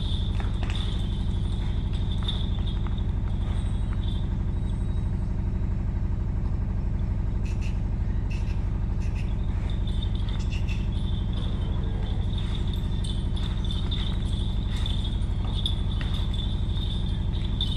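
A steady low drone with a fast, even pulse, like an engine running without change. Over it a shrill insect buzz sounds, fades out about four seconds in and returns about ten seconds in.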